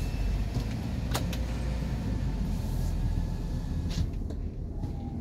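Low in-cabin rumble of a 2022 Toyota Avanza 1.3 CVT on the move, engine and tyre noise, with a sharp click about a second in and another near four seconds.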